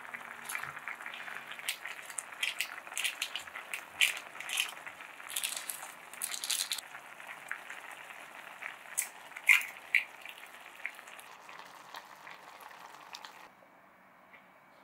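Saucepan of instant noodle soup boiling: a steady bubbling hiss with frequent sharp pops and clicks as ingredients are added, cutting off near the end.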